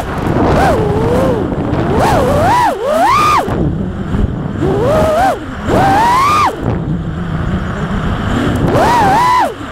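The motors and propellers of a 5-inch FPV freestyle quadcopter are whining. The pitch swoops up and down about six times with bursts of throttle as it flips and dives, over a steady rushing noise.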